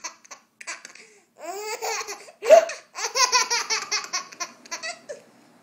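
Baby laughing hard in bursts of rapid chuckles, with the longest run of chuckles a little past the middle.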